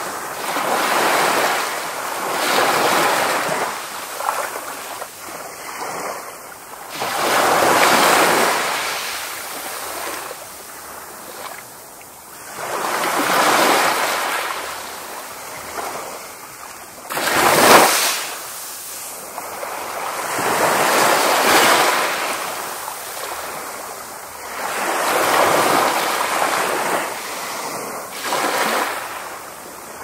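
Ocean waves breaking and sliding up a beach, the surf swelling and fading every few seconds; the loudest, sharpest break comes a little past halfway.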